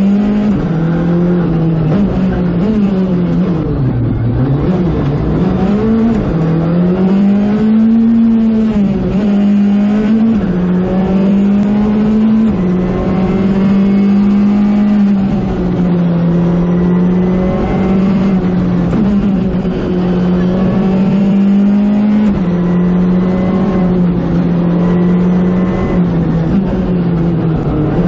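Škoda Fabia R5 rally car's 1.6-litre turbocharged four-cylinder engine heard from inside the cockpit, held at high revs. Its pitch keeps stepping up and down as the driver changes gear, and the revs drop and climb back about four to six seconds in.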